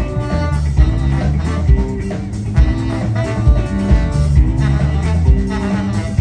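Live band playing an instrumental passage: drum kit keeping a steady beat under bass, guitar, and sax and trombone horn lines.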